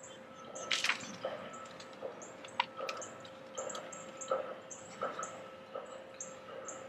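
Soft rustles and scrapes of potting soil being pressed into black plastic nursery pots, with a few light knocks of a plastic pot being picked up. Short high bird chirps repeat in the background over a faint steady hum.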